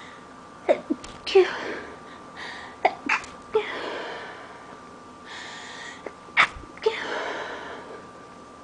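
A person sneezing over and over in an allergy fit: three bursts of sneezes, each of two or three sharp sneezes with a breathy rush after, and a drawn-in breath before the later bursts.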